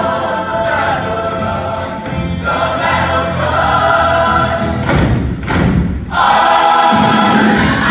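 Large mixed show choir singing sustained chords with a live band. About five seconds in the voices drop out under a few heavy thuds, then choir and band come back in louder.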